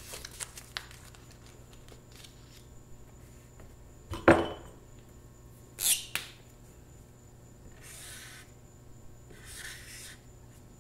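Paper sticky notes and a marker handled on a board: a knock about four seconds in and a sharp click about two seconds later, then two short scratchy strokes of a felt-tip marker writing on paper near the end.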